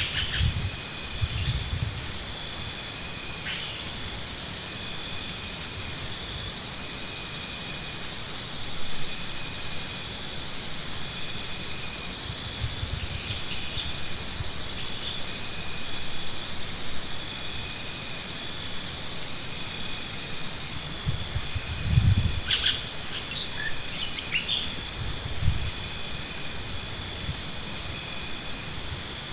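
High, evenly pulsed insect trills in runs of a few seconds with short gaps, over a steady high whine. A few dull low thumps, the strongest about two-thirds of the way in.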